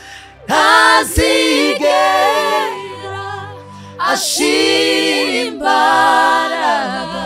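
Two women singing a worship song together at a close microphone, in long held phrases with strong entries about half a second in and again about four seconds in.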